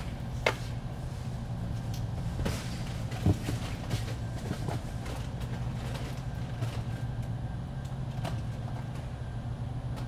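Steady low background hum with scattered light clicks and knocks of small objects being handled; the loudest knock comes about three seconds in.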